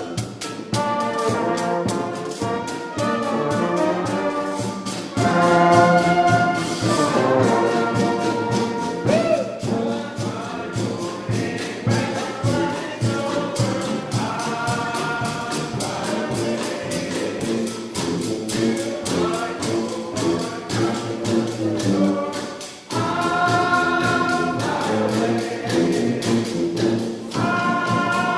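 Street brass band playing second-line parade music: horns such as trumpets and trombones together over a steady drumbeat.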